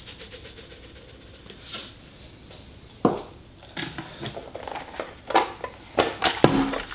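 Salt shaken from a canister into the water of a pressure cooker insert, a fast rhythmic rattle of about ten shakes a second. From about three seconds in, several separate sharp knocks and clicks follow.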